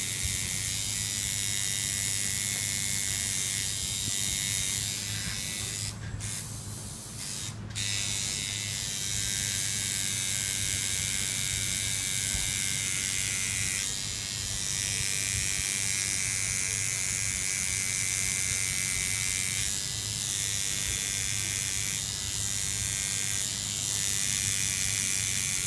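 Electric tattoo machine buzzing steadily while it works ink into skin. Its drone dips briefly, with two sharp clicks, about six to eight seconds in.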